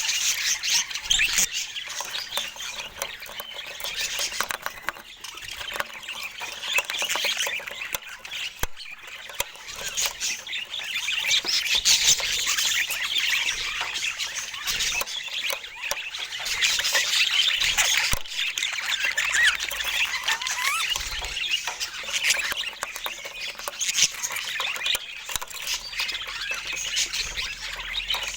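Several budgerigars chattering and squawking at once: a dense, continuous stream of quick warbling chirps and squawks.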